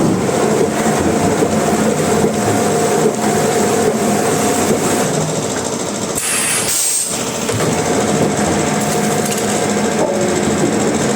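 Sawmill machinery running steadily with a constant hum, easing off briefly about six seconds in.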